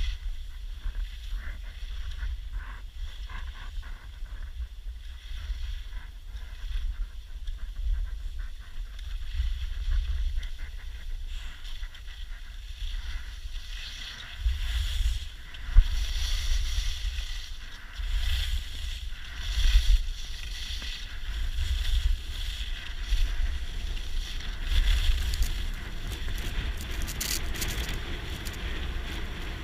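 Skis hissing and scraping over groomed, hard-packed snow while wind buffets the microphone with a low rumble. The ski scraping grows louder and harsher from about halfway through, with a sharp knock or clatter a little after that.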